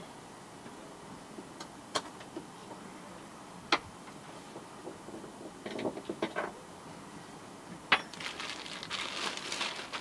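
Handling noises on a yacht's deck: a few sharp clicks and knocks, then a stretch of rustling and light clatter near the end as a coiled plastic siphon hose is picked up and handled.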